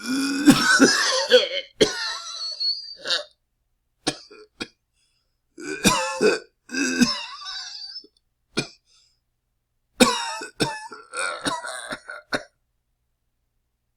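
A man coughing in three main bouts of several coughs each, with a few single coughs between them.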